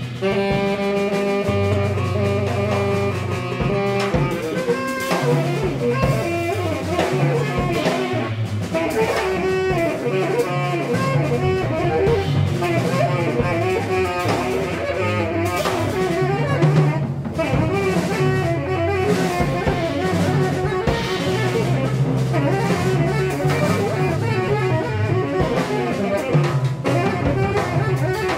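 Live improvised jazz from a trio of tenor saxophone, electric bass and drum kit. The saxophone opens on a long held note, then plays busier lines over bass notes and drums and cymbals.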